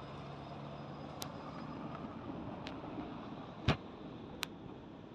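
A car driving past on the road, a steady rush of tyre and engine noise, with four sharp clicks over it, the loudest about three and a half seconds in.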